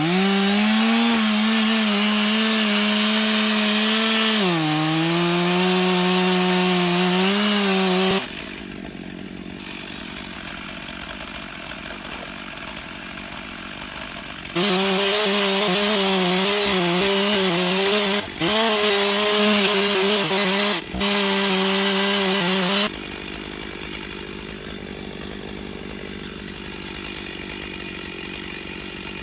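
Stihl two-stroke chainsaw at full throttle cutting into a huge Douglas fir log. Its pitch sags under load about four seconds in. It drops to idle about eight seconds in, then cuts at full throttle again from about fifteen seconds, with two short throttle dips, before falling back to idle.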